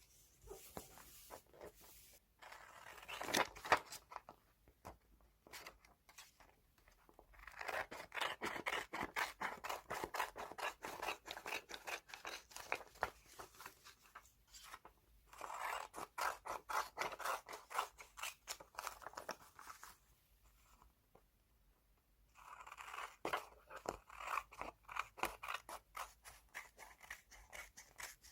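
Scissors cutting through magazine paper, in several runs of quick, sharp snips with short pauses between them.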